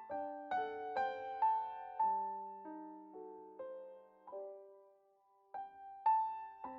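Background piano music: single notes struck one after another and left to ring, with a short pause a little past the middle.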